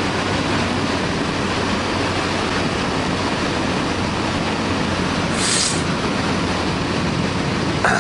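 Steady wind rush on the microphone over the even drone of a Honda CB1100EX's air-cooled inline-four engine cruising at road speed, with a brief higher hiss about two-thirds of the way in.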